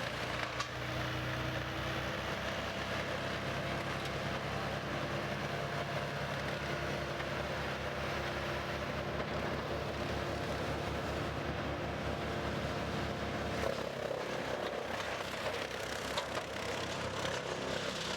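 Brush chipper's engine running steadily while branches are fed through it.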